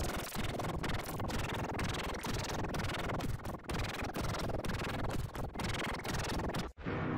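A children's song heavily distorted as a meme sound variation, reduced to harsh, scratchy noise with no recognisable tune. It cuts off suddenly near the end.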